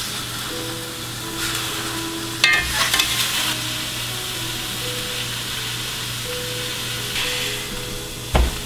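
Elk roast searing in a hot cast iron skillet: a steady sizzle, with a sharp click of metal tongs on the pan about two and a half seconds in and a thump near the end as the roast is turned onto another side.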